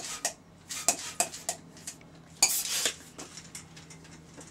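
Hand balloon pump inflating a 260 latex twisting balloon: a run of short, sharp pump strokes and puffs of air, with one longer rush of air about two and a half seconds in, then quieter handling.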